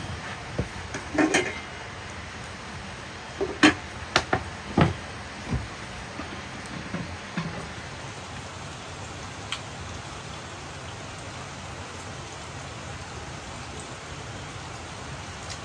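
Steady hiss of rain, with several sharp wooden knocks in the first five seconds, the loudest cluster a few seconds in.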